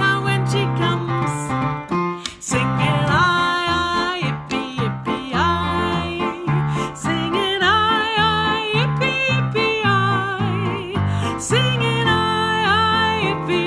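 Lively accompaniment music led by keyboard, with a melody line that wavers in vibrato and a bouncing bass below it.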